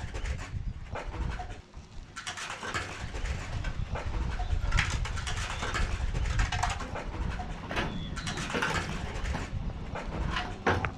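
Loose paving stones clacking and scraping against each other as they are set back into a stone patio by hand, in scattered short knocks over a steady low rumble.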